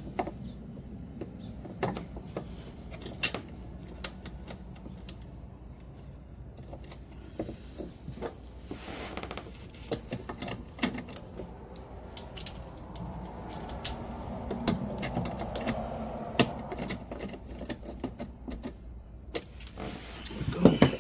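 Irregular clicks, taps and light rattles of hand tools and small metal and plastic parts being handled, over a low steady hum.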